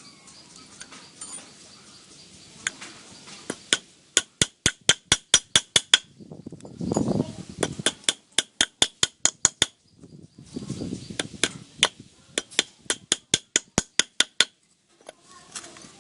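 Hammer striking metal in three quick runs of sharp blows, about four a second, each blow ringing with a clear metallic tone. Short pauses separate the runs, with a low rustle or scrape in two of them.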